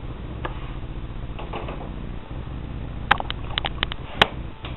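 Sharp mechanical clicks from a home-built pneumatic retractable landing gear on a model airplane, a quick run of them starting about three seconds in, then one louder snap as the gear cycles. A steady low hum runs underneath.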